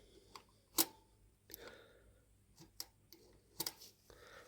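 A few scattered light metallic clicks, the loudest about a second in, as the throttle and choke valve linkage of a Toyota 3K carburetor is worked by hand.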